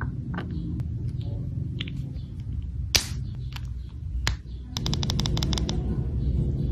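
Small plastic and metal clicks and taps as a vape pod device is handled and its pod fitted. One louder click comes about three seconds in, and a quick run of about a dozen sharp clicks follows around five seconds in, over a steady low rumble.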